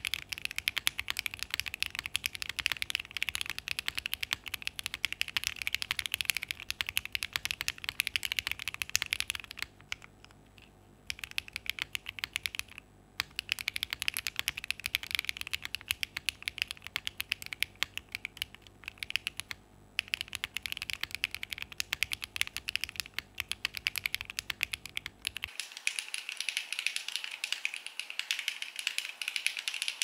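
Typing on a Dots87 mechanical keyboard with Clould switches, a polycarbonate plate, case foam and GMK Oblivion keycaps: rapid, continuous keystrokes. The typing stops briefly about ten seconds in and again about twenty seconds in.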